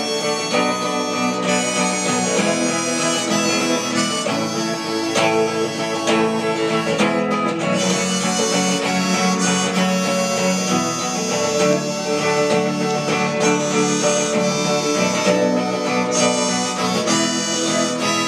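Harmonica, played from a neck rack, carrying the melody over a strummed guitar in a live folk-blues song.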